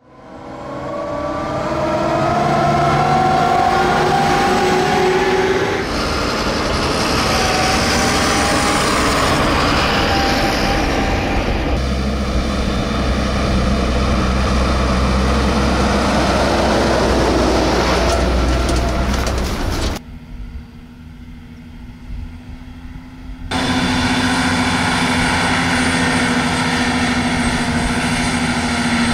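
Farm machinery at work: diesel tractors and a self-propelled forage harvester running, the sound changing abruptly every few seconds from one machine to the next. A deep rumble from a Fendt tractor pulling a loaded silage trailer past fills the middle, and a steady droning hum from the forage harvester chopping into a trailer comes near the end.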